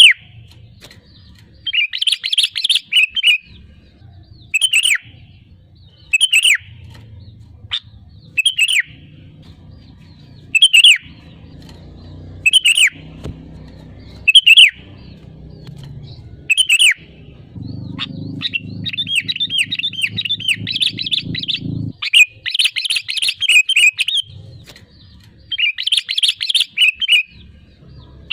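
Sooty-headed bulbul calling repeatedly: short, sharp falling whistles about every two seconds, broken by longer bursts of fast chattering song, the longest running about four seconds around two-thirds of the way through. A low hum lies underneath.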